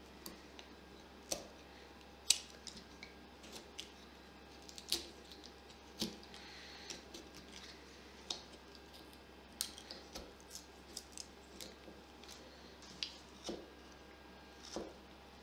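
Carving knife slicing shavings from a block of butternut wood: short, sharp cutting sounds at irregular intervals, about a dozen, the strongest about two seconds in.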